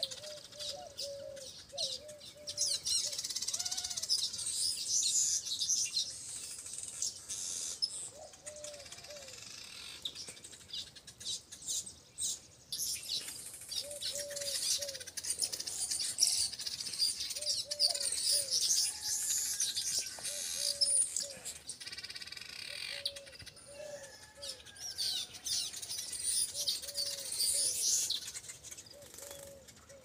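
A colony of baya weavers chattering and chirping, the dense high-pitched chorus swelling and fading in long stretches. Beneath it, a lower, short call repeats in small groups throughout.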